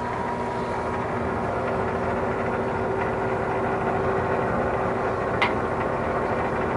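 Air-conditioning equipment running with a steady electrical hum and drone. A short click comes about five and a half seconds in.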